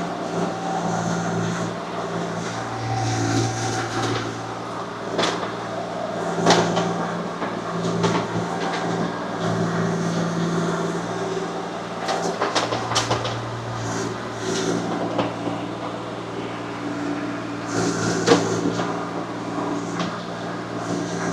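Small excavator's engine running steadily under working load, its low note shifting now and then, with sharp knocks and clanks scattered through, the loudest about six and a half and eighteen seconds in.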